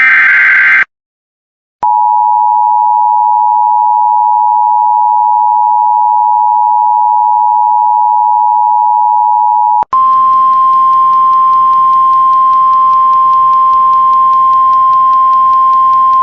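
The last burst of an Emergency Alert System SAME header, a harsh warbling data screech, ends just under a second in. After a moment of silence the steady two-tone EAS attention signal sounds for about eight seconds. It then switches abruptly to the single-pitch 1050 Hz NOAA Weather Radio warning alarm tone, which has radio hiss behind it. This is the alert sequence that opens a severe thunderstorm warning broadcast.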